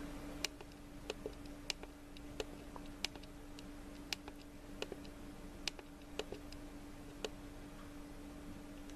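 Small camcorder control buttons clicking about a dozen times at irregular intervals as the EV exposure setting is stepped down, over a faint steady hum.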